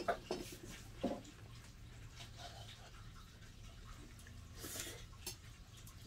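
A few short, sharp knocks and clicks, one right at the start and another about a second in, with lighter ones near the end, over a faint steady low hum.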